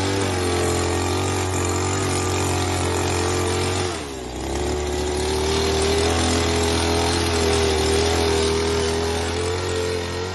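Small petrol engine of a handheld brush cutter (grass cutter) running at steady high speed. About four seconds in its speed sags briefly, then picks back up.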